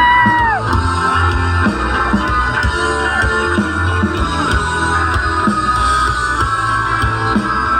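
Loud music with guitar, bass and drums over a steady beat; near the start a high note slides up and back down.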